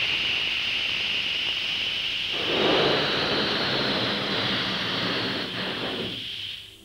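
Sound effect for a toy contraption: a steady high hiss, joined about two and a half seconds in by a louder rushing whoosh that fades out again, before the hiss cuts off suddenly near the end.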